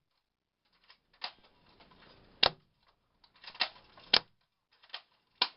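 Airsoft gun fired in single shots: about six sharp cracks at uneven intervals, BBs going into a cardboard target.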